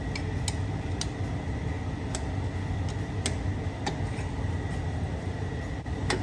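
Sharp, light metal clicks at irregular intervals, about one a second, from hand tools working a rear disc-brake caliper loose, over a steady low hum with a faint high whine.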